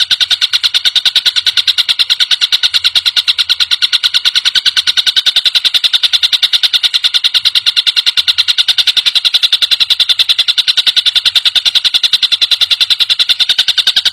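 Tengkek buto kingfisher giving a loud, rapid rattling call: an unbroken string of sharp, high notes at about ten a second, very even throughout.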